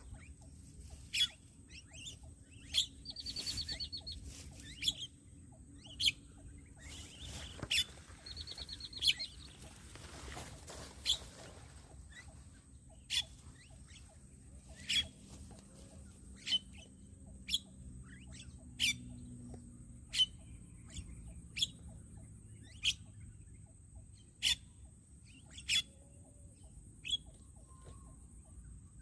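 Starling (jalak) calls: short sharp chirps repeated at an even pace about every second and a half, with two longer rattling calls in the first ten seconds, over a faint steady high whine.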